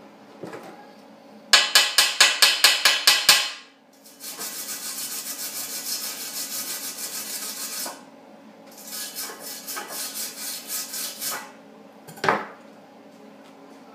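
Hand file rasping on the welded steel of a two-stroke snowmobile exhaust pipe: a run of quick strokes, about five a second, then a longer steady scrape, then more strokes, with a single sharp knock near the end.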